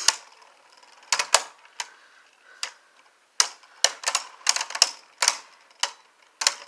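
Beyblade spinning tops clashing in a plastic stadium: a series of about a dozen sharp, irregular clacks.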